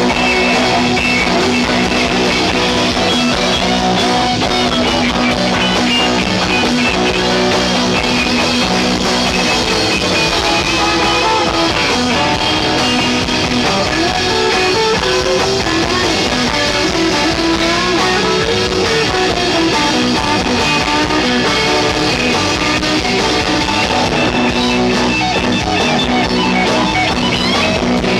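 Live rock band playing loud and steady, with electric guitars over a drum kit.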